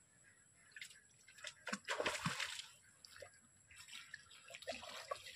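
A hooked catfish thrashing at the surface of a small, shallow pool as it is pulled in on a fishing line, making irregular splashes. The loudest burst of splashing comes about two seconds in, and another run of splashes comes near the end.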